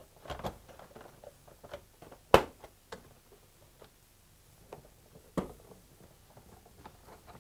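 Light scattered clicks and ticks of a plastic TV back cover being pressed into place and small screws being picked up and driven in with a hand screwdriver, with two sharper knocks, the louder about two and a half seconds in and another about five and a half seconds in.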